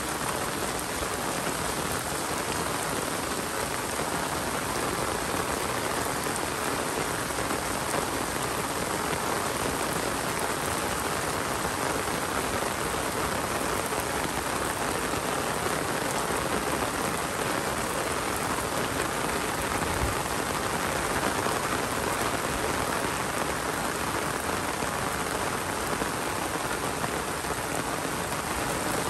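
Steady rain falling: an even, unbroken hiss of drops landing on surfaces.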